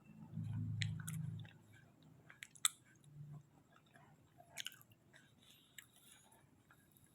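Close-up chewing of soft sweet potato kolak, with wet mouth smacks and clicks every second or two. A low hum in the first second and a half.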